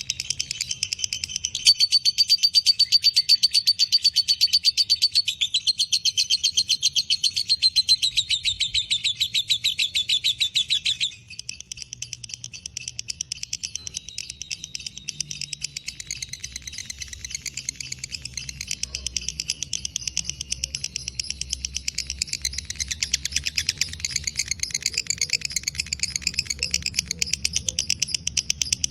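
Lovebird giving its long, rapid chattering trill (ngekek). The trill is loud for the first ten seconds or so, then goes on more softly.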